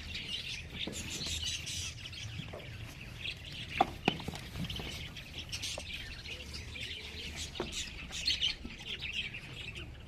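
Many small birds chirping steadily, with a couple of sharp knocks about four seconds in.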